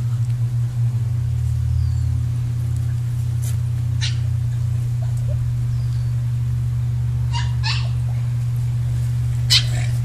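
Dogs at play giving a few short, high yelps, two close together about seven and a half seconds in and one near the end, over a steady low hum.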